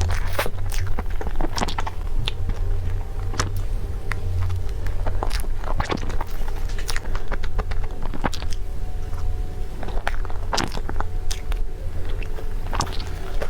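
A person biting and chewing crunchy food, with irregular crisp crunches, over a steady low hum.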